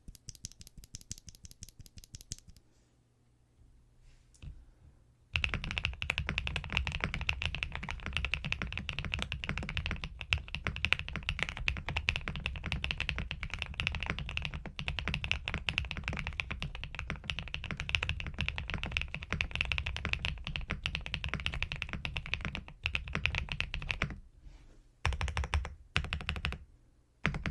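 Womier SK71 Pro mechanical keyboard with Gateron Sea Salt Smoothie switches being typed on, a sound between creamy and marbly. It opens with a short run of separate keypresses and, after a brief pause, turns into fast continuous typing for most of the time, ending in a few short bursts.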